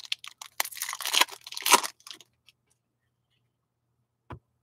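A stack of Upper Deck Allure hockey cards being handled and slid against one another, a dense rustling scrape for about two seconds. A single short click follows near the end.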